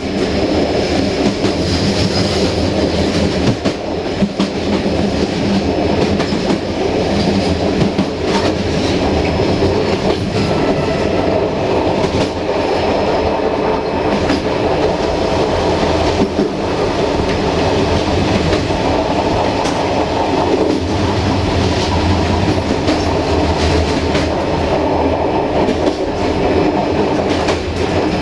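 Passenger train running along the track, heard from the rear of the train: a steady, loud rumble of wheels on rail with scattered clicks and knocks as the wheels pass over rail joints.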